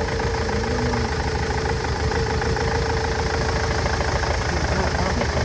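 Nissan Interstar / Renault Master van engine idling with a misfire that has persisted despite new injectors, fuel pipes and injector wiring loom. It is a steady, pulsing idle with a constant hum.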